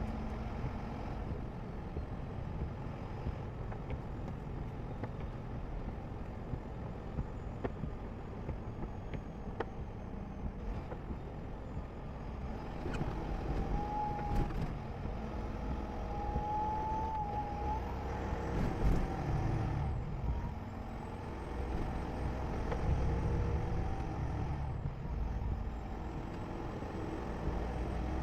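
Vehicle driving on a road: a steady rumble of road and engine noise, with two short high squeals about halfway through.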